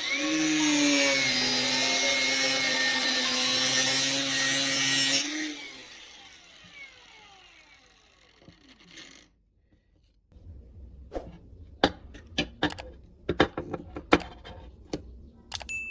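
A small electric power tool runs at high speed with a steady whine over a gritty hiss, then cuts off about five seconds in and spins down. Scattered sharp clicks and knocks of parts being handled follow in the second half.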